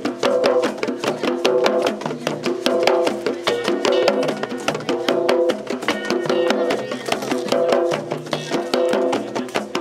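Drum-circle music: hand drums with hide heads and other hand percussion playing a fast, dense, steady rhythm.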